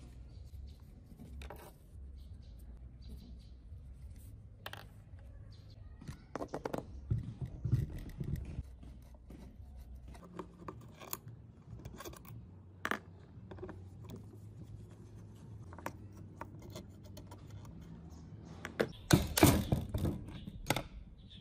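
Metal tool handling while the motor of a Makita cut-off saw is taken apart by hand: scattered clinks, taps and scrapes of screwdriver, screws and casing. The loudest scraping and clattering comes near the end, as the armature is drawn up out of the stator housing.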